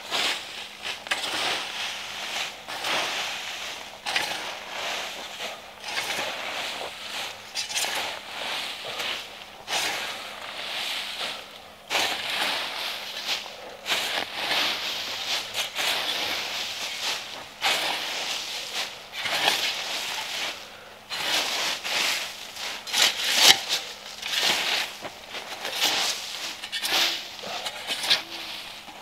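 Dry leaves and twigs rustling and crunching in irregular bursts close to the microphone, with a louder crack about three-quarters of the way through.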